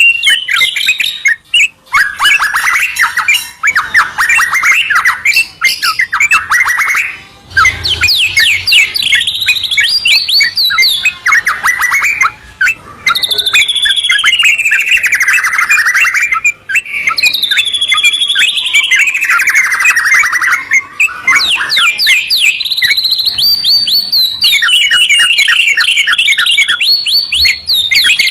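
White-rumped shama and yellow-vented bulbul singing in duet: loud, nonstop song of rapid trills and runs of repeated notes, with long whistled phrases that slide down in pitch, broken only by brief pauses.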